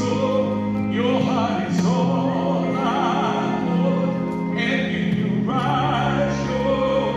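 A man singing a slow song in an operatic style with wide vibrato over sustained orchestral accompaniment, with phrases starting about a second in and again past the five-second mark.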